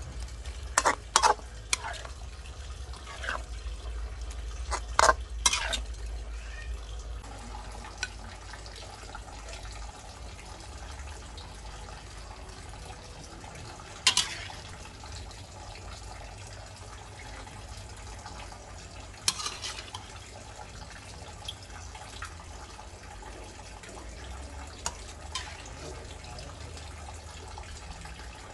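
Metal spatula knocking and scraping against a frying pan as luffa gourd is stir-fried, with a run of sharp clinks in the first six seconds. Then a steady low frying hiss with an occasional single clink.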